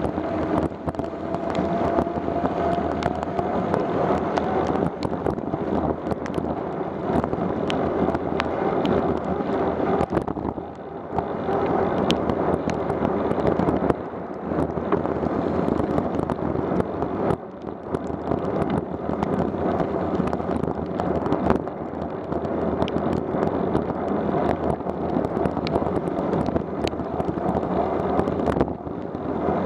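Wind noise over a bicycle-mounted camera's microphone, with the hiss of tyres on a wet road and frequent sharp ticks of raindrops striking the camera housing.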